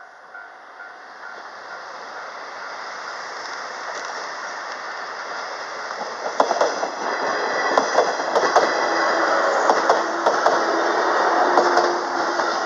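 Train running through a level crossing: its rumble builds steadily, then wheels clack over rail joints in quick groups through the second half. The crossing's alarm bell rings in a steady repeating ding at the start and is drowned out as the train comes near.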